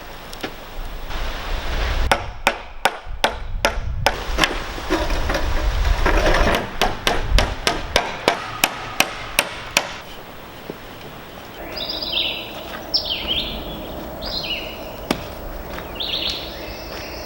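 A hammer striking wood, in a run of sharp blows that settles into a quick, regular series in the middle and then stops.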